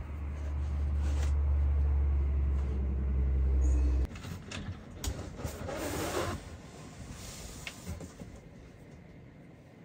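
A steady low mechanical hum that cuts off abruptly about four seconds in, followed by quieter rustling and a few light clicks and knocks.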